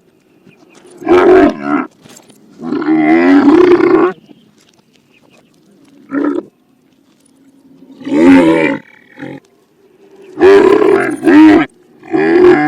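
Camel calls played in reverse: about six loud, pitched groaning calls with gaps between them, several swelling up and then cutting off abruptly.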